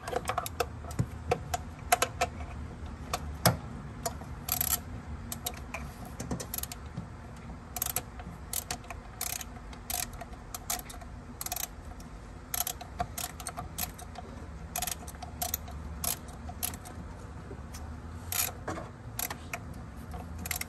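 Ratchet wrench clicking in short runs of quick strokes as the 10 mm ignition coil hold-down bolts on a Honda V6 are tightened.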